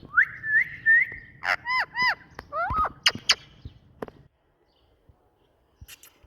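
Indian ringneck parakeet whistling and calling: a long rising whistle, then a run of short arched chirps and rising glides, with a couple of sharp squawks about three seconds in.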